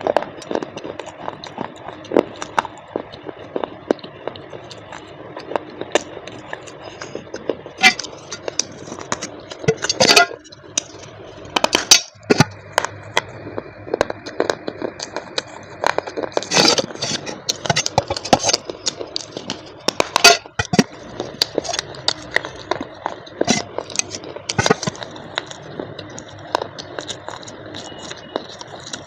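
Close-up crackling, scraping and irregular sharp clicks from a parcel's packaging being handled and opened by hand. A faint steady high whine sits behind it in stretches.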